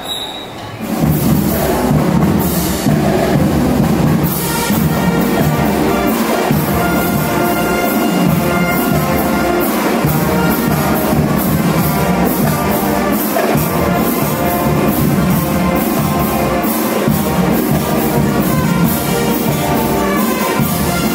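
Brass marching band playing a tune with drums keeping a steady beat, starting about a second in.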